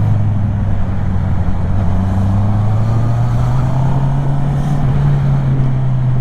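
Kymco Xciting 400 scooter's single-cylinder engine running steadily, its pitch creeping slightly higher through the middle.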